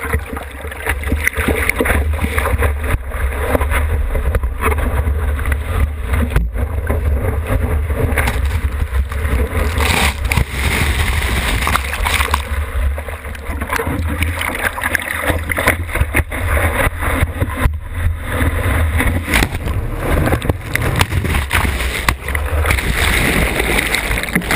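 Sea water sloshing, splashing and gurgling against a board-mounted action camera's waterproof housing as a surfboard is paddled and pushed through whitewater, over a constant low rumble of water buffeting the housing.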